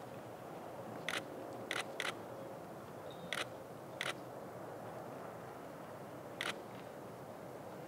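Camera shutter clicking six times at irregular intervals, two of them in a quick pair, over a steady background hiss.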